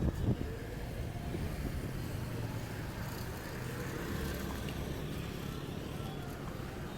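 Road vehicle noise: a steady low rumble of car traffic, with two sharp knocks just at the start.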